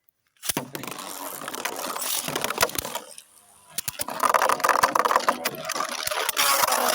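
3D-printed Beyblade tops launched into a stadium, spinning and clashing with rapid clicking hits and a harsh scraping noise as a top's tip drags on the stadium floor. The scraping grows louder near the end.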